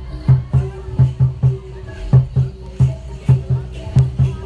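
Loud music with a heavy, syncopated drum beat of about three or four low thumps a second over a held pitched tone, with a light shaker rattling along.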